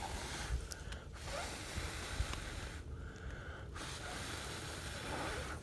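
Spinning ground firework (a 'top'-style spinner) hissing as it throws sparks, with a brief sputter about three seconds in.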